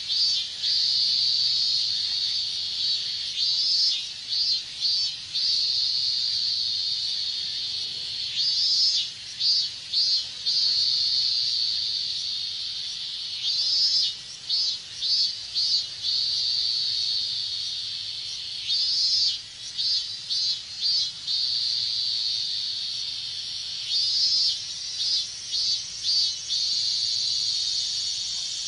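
Chorus of robust cicadas (minmin-zemi) singing: a steady high buzz broken about every five seconds by a run of separate pulsed calls, then running on steadily again.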